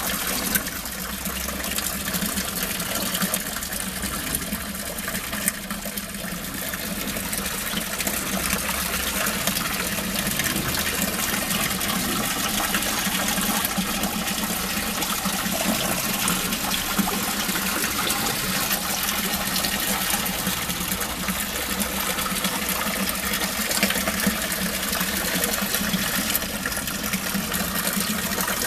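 Steady rush of water splashing into a koi holding tank, with a low steady hum underneath.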